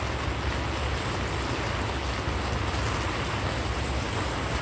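Steel plane iron rubbed back and forth on a sharpening stone as its bevel is honed by hand: a steady scraping hiss, over a low steady rumble.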